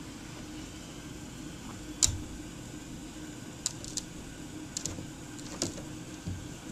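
A handful of short, light clicks and knocks, the loudest about two seconds in, as a Jack Russell terrier stands on its hind legs pawing and scrabbling at a wooden Adirondack chair and its cushion. A steady low background hum runs underneath.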